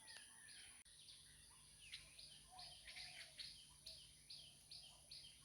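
Faint dawn birdsong: a high, short chirp repeated about twice a second, with a few lower warbling calls in the middle, over a steady very high insect-like whine.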